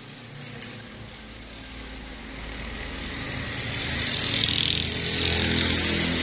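An engine running, growing steadily louder.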